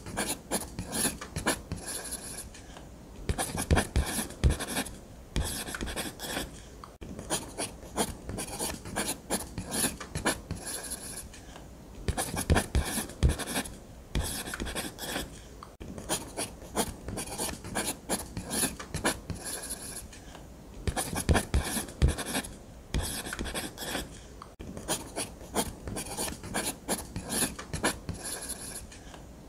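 Ballpoint pen scratching across paper in quick drawing strokes, coming in runs with brief pauses between them.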